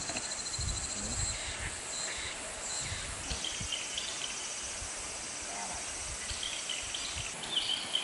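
Forest evening ambience: insects trilling steadily at a high pitch, with short bird chirps now and then, the loudest near the end, over soft low rumbling.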